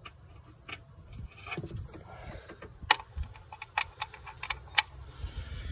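A hand wrench working a bolt in an engine bay: a handful of sharp, irregular metal clicks and ticks, with faint handling noise between them.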